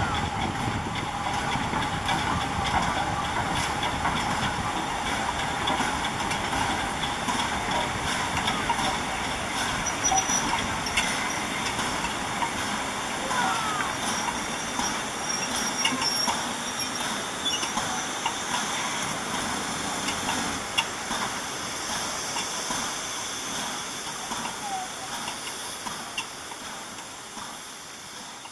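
LMS Royal Scot class steam locomotive 46100 running past with its coaches: a steady hiss of steam over the rumble of the train, the sound fading over the last few seconds as it draws away.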